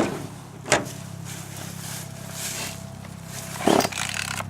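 A two-stroke chainsaw being pull-started cold, with the primer pushed and the choke out. The starter cord is yanked three times with sharp rasping pulls, the engine not yet running.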